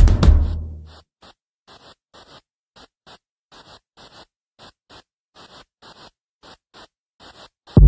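Background music: the drum beat dies away in the first second, leaving only faint, quick, evenly spaced ticks about three a second, like a shaker or hi-hat keeping time. A loud bass-heavy beat comes back in right at the end.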